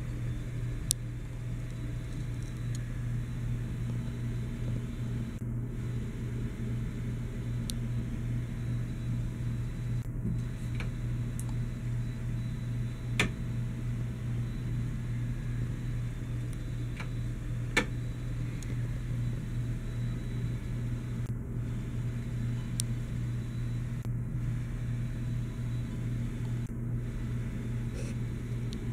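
A steady low mechanical hum, with three short sharp clicks spread across it.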